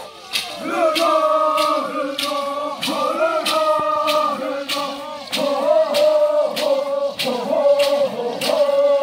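A group of Kayapó men and women chanting in unison on long held notes, starting about a second in, over a sharp beat about twice a second.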